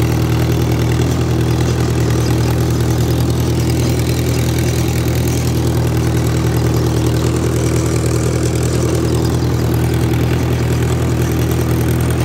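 Mahindra Yuvo 575 DI tractor's four-cylinder diesel engine running steadily, heard close up from the driver's seat.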